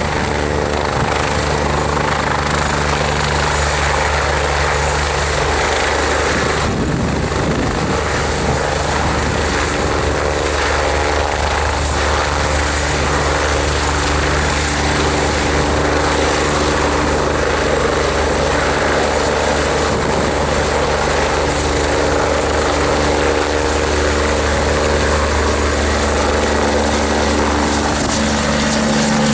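Kawasaki BK117C-2 helicopter hovering low with its twin turboshaft engines running, a steady rotor sound with a constant high turbine whine; near the end it lifts off and climbs away and the pitch of the low tones rises.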